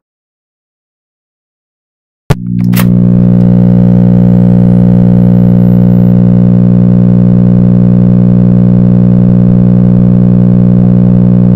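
About two seconds of total silence, then a click, and a loud, steady low drone with many overtones starts abruptly and holds with a slight regular pulsing. A faint rising high whistle sounds above it a little after the start.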